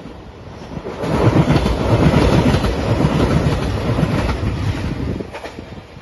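A JR Shikoku 2700 series diesel express train passing close by, the noise of its wheels on the rails swelling about a second in and dropping away after about five seconds.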